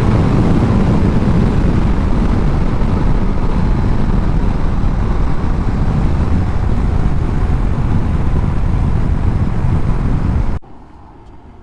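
Heavy wind buffeting on a GoPro Hero 10's microphone during a motorcycle ride at highway speed, a loud dense roar that drowns out everything else: the camera's wind noise problem at speed. It cuts off suddenly about ten and a half seconds in, leaving a much quieter background.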